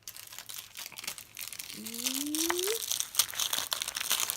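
Plastic wrapping of an LOL Surprise ball crinkling and crackling as it is peeled open by hand, growing louder partway through. About two seconds in, a brief rising hum of a voice.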